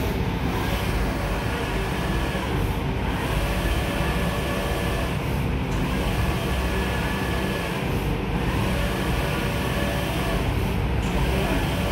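Large-format banner printer running: a steady mechanical hum, with the print-head carriage sweeping back and forth across the roll about every two and a half to three seconds.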